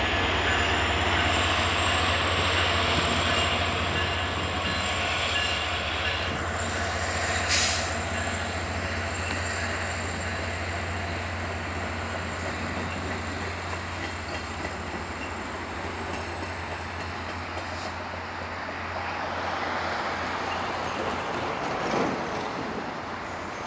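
VIA Rail LRC passenger train rolling past and pulling away: a steady low rumble of wheels on rail that slowly fades, with a thin high wheel squeal over it. Two sharp metallic clanks come about a third of the way in and near the end.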